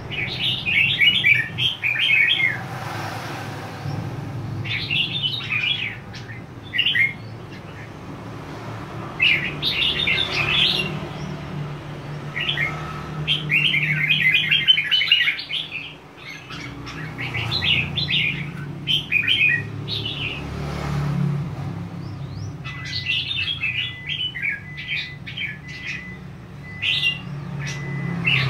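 Red-whiskered bulbul singing: short, rapid warbled phrases repeated every few seconds.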